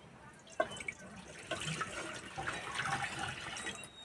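Cow's milk pouring from a steel pot into a wide kadai, a steady liquid splash that starts about half a second in.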